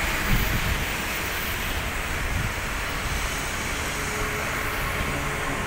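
Jet engines of an IndiGo Airbus A320-family airliner running as it rolls along the runway: a steady rumble and hiss.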